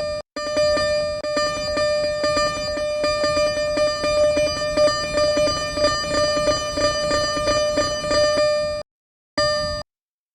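Japanese level-crossing alarm ringing: a rapid, repeated electronic clang on one steady pitch. It drops out for a moment near the start, then cuts off about a second before the end, returns briefly, and stops.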